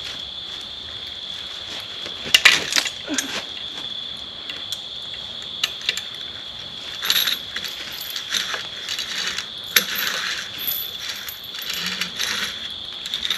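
Rope being pulled and worked through a small rope pulley system hung from a tree-saddle platform, its metal hardware clinking and rattling in irregular clicks, with a cluster of louder clinks about two seconds in. A steady high insect trill runs underneath.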